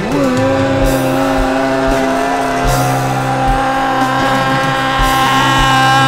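Rock band jamming: one long sustained note slides up at the start and is then held steady, with kick-drum beats underneath.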